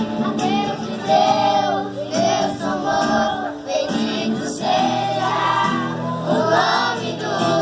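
A group of voices singing a worship song together over sustained instrumental accompaniment.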